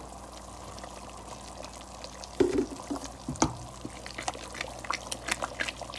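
Flour poured from a cup into melted butter and ground walnuts bubbling in a metal pot, then stirred in with a wooden spoon. A steady hiss gives way to fine crackling from the hot butter, with two louder knocks against the pot about halfway through.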